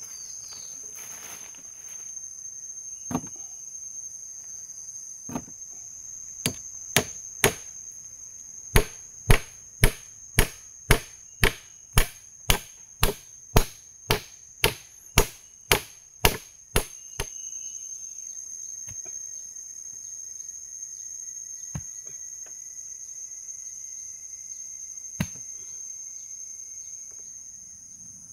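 A hammer driving small nails: a run of about twenty sharp strikes at roughly two a second, starting about six seconds in and stopping about seventeen seconds in, with a few single knocks before and after. A steady high-pitched insect drone runs underneath.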